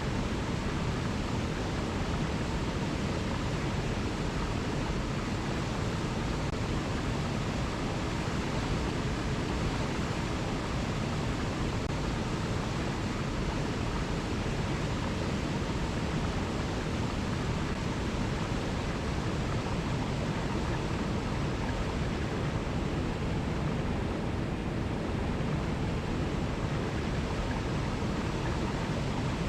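Alpine mountain river flowing over cascades: a steady, even rush of water.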